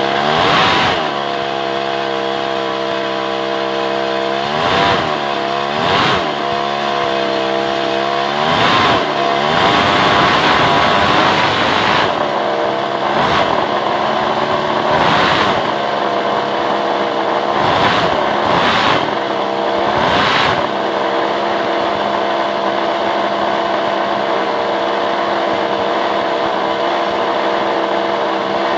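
Two-stroke chainsaw engine on a test stand, idling with repeated short throttle blips that rev it up and let it fall back, about ten in the first twenty seconds, then settling into a steady idle.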